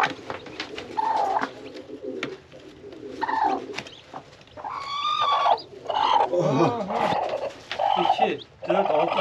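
Broody hen calling several times in low, wavering clucks and coos as she is lifted off her nest of newly hatched chicks, with short rustles and clicks from the straw and plastic crate.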